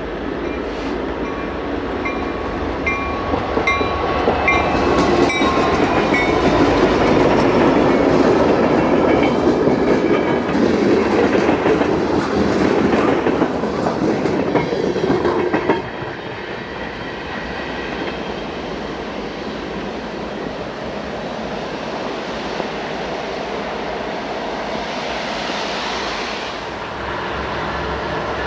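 A train rolling past with its wheels clacking over rail joints. The sound is loudest through the first half and drops off sharply about sixteen seconds in, leaving a steadier, quieter rumble.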